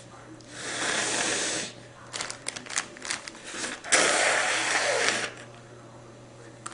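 A person blowing their nose hard twice, each blow about a second long and the second the louder, with a run of short crackles in between.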